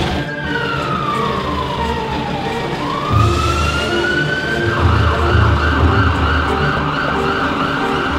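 Ambulance siren wailing: one long fall in pitch, a rise back up, then about five seconds in it switches to a fast warble. A low pulsing beat runs underneath from about three seconds in.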